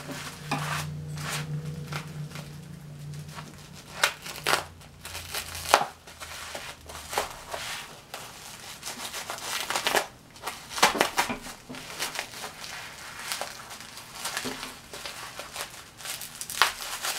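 Bubble wrap and packing paper being handled and unwrapped by hand, an irregular crinkling and crackling with sharp crunches scattered throughout.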